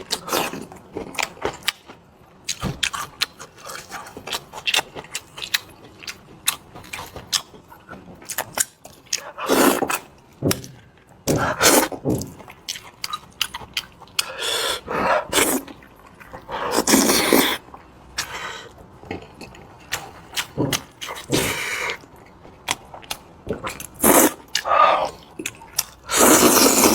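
Close-miked eating sounds: wet chewing and lip smacks with many short clicks, broken by several louder, longer bursts of noisy eating sound.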